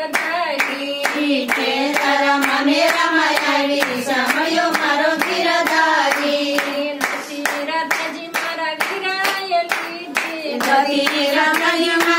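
A group of women singing a Gujarati bhajan together, clapping their hands in a steady beat.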